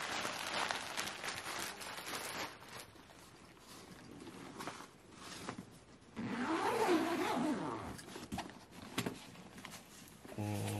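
Bubble wrap around tennis rackets crinkling as it is handled, then a quieter stretch of light handling. About six seconds in, a fabric racket bag's zipper is pulled open in one long stroke, its pitch rising and falling with the speed of the pull.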